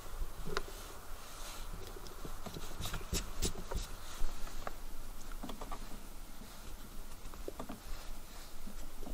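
Scattered small clicks, taps and rubbing of hands handling metal hydraulic control valve parts and seating rubber O-rings into their ports, with a short run of sharper clicks a few seconds in.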